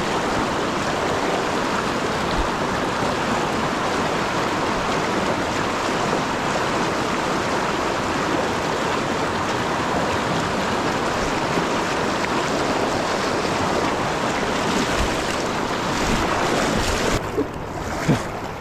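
Creek water rushing steadily. A few short knocks and bumps near the end.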